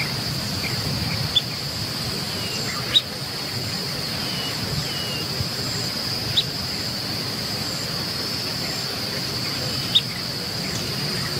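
Grassland ambience: a steady high-pitched insect drone over a low rumble, with a few short, sharp chirps about every three seconds.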